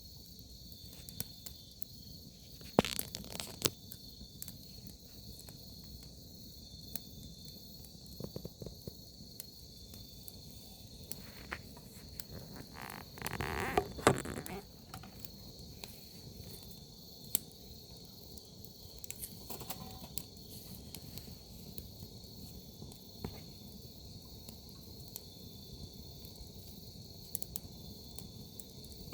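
Crickets chirping steadily with a firewood fire crackling and popping in sharp clicks. A brief crunch about three seconds in and a louder crunching rustle lasting a couple of seconds around the middle.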